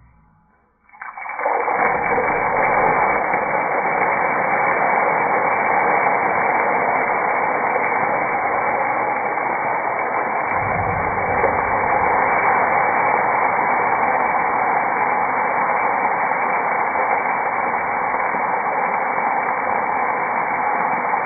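Oil sizzling steadily in a nonstick frying pan as a paste fries and is stirred with a spatula; the sizzle starts suddenly about a second in.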